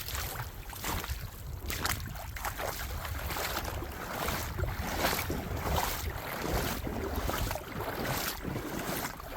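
Wind rumbling on the microphone, with irregular crunching and crackling from footsteps on the frozen creek bank.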